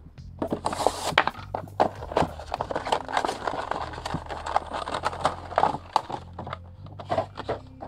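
Clear plastic window of a cardboard figure box crinkling and crackling in quick irregular clicks as it is pulled apart from the cardboard by hand.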